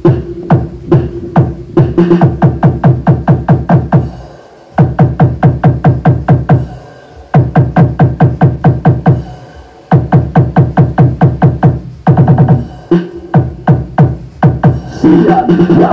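Loud electronic dance music with a fast, heavy bass-drum beat, played through a Storm Quake 15-inch 2000-watt speaker in a sound test. The beat cuts out briefly every few seconds and comes back in.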